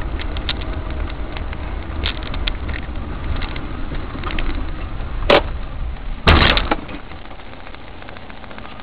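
Low in-car road rumble on a snowy street with small clicks and rattles. A sharp knock comes about five seconds in, and a second later there is a louder crunching impact lasting about half a second as an oncoming box van hits the front of the car.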